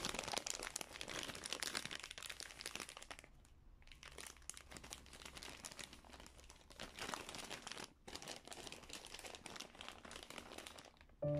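Plastic zip-top freezer bags crinkling as bread rolls inside them are handled and the air is pressed out of the bags. The crinkling is irregular, with short lulls about three and a half seconds in and about eight seconds in.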